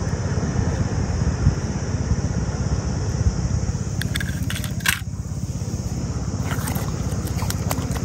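Steady low rumble of wind buffeting the microphone outdoors, with scattered clicks and scrapes of fingers and a small die-cast toy car in wet sand, most of them about halfway through and near the end.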